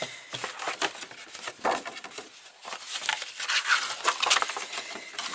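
Sheets of cardstock rustling and sliding as they are handled and lined up on a paper trimmer, with scattered small taps and scrapes, busiest from about three seconds in.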